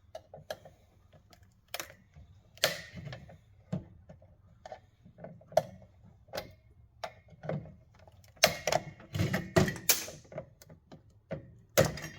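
Irregular sharp clicks and metallic clatter from wire clippers and the radar unit's metal parts being handled, with a dense run of clattering about nine seconds in.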